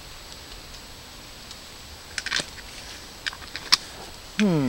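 A few sharp, isolated clicks over a quiet background, from about two seconds in; a man's voice begins near the end. No sustained rattle is heard.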